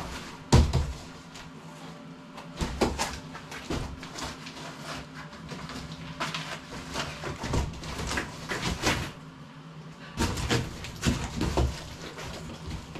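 Knocks, bumps and rustling as a cardboard workbench box and its packaging are handled, with a loud thump about half a second in and bursts of knocking later on.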